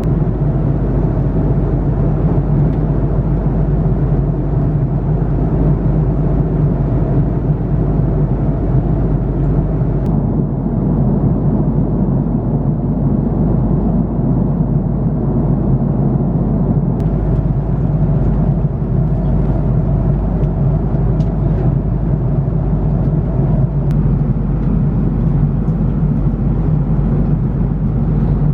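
Steady cabin noise inside an Airbus A330-300 airliner in flight: an even low rumble of the jet engines and airflow, with a constant hum and no change in pitch.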